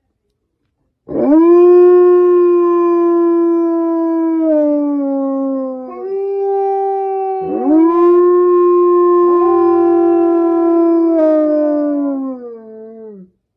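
Wolves howling: long, steady howls that slide down in pitch at their ends, with two or more voices overlapping in the second half.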